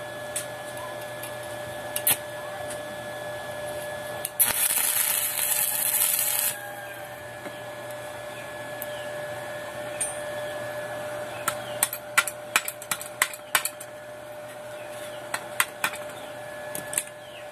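Stick-welding arc crackling and hissing for about two seconds, starting some four seconds in, over a steady hum. Near the end come a run of sharp metallic taps and clicks as the electrode and work are handled.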